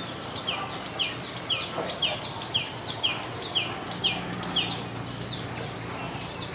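Small birds chirping in a quick, steady run of short chirps that slide downward in pitch, about two or three a second, over a constant high-pitched tone.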